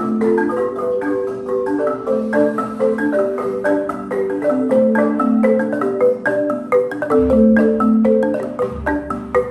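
Marimba de chonta playing a quick currulao pattern of short struck wooden notes, several a second, with repeated low notes under higher ones. A deep bass sound joins about seven seconds in.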